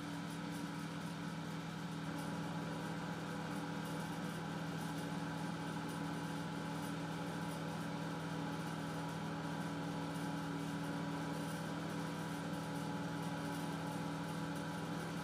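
Steady low machine hum, a constant drone that does not change.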